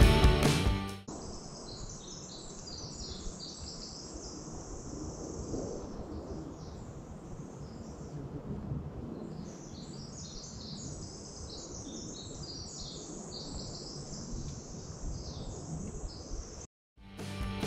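Forest ambience of small songbirds singing: many short, high chirps and trills overlapping, over a low steady rumble. Background music fades out in the first second and starts again at the very end after a moment of silence.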